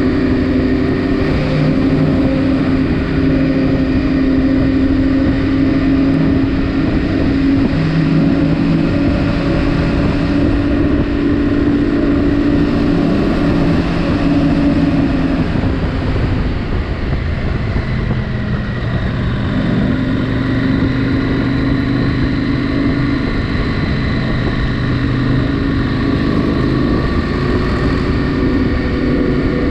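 KTM 790 Adventure R's parallel-twin engine running steadily under way; about halfway through the engine note falls away, then it settles again at slightly lower revs.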